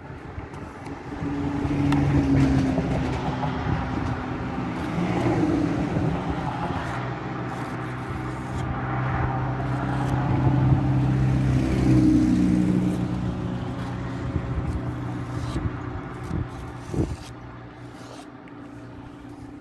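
A motor vehicle engine running steadily. It swells over the first couple of seconds, holds with slight shifts in pitch, and fades over the last few seconds, with one short knock near the end.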